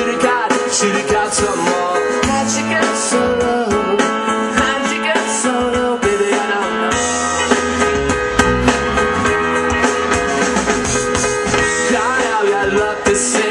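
A live rock band playing a song, with amplified guitar, a drum kit and a male lead vocal.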